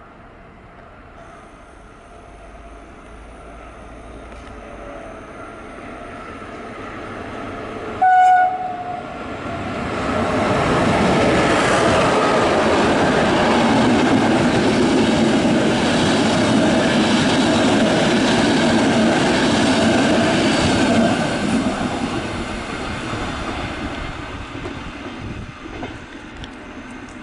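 Intercity train hauled by an FS E.401 electric locomotive sounds one short horn blast about eight seconds in as it nears, then runs through the station. The wheels rolling on the rails grow loud for about ten seconds as the carriages pass, then fade away.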